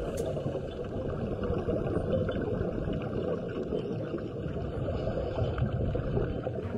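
Muffled underwater ambience: a steady low rush of water noise.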